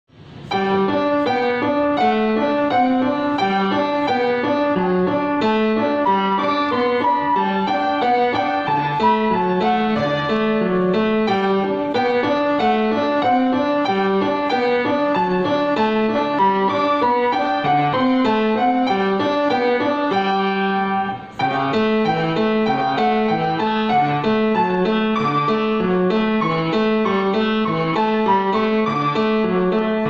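Grand piano played solo, one note following another in a continuous run, with a brief break about two-thirds of the way through.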